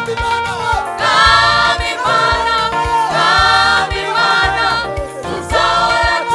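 Gospel worship music: several voices singing together in a choir over band accompaniment, with bass and drums keeping a steady beat.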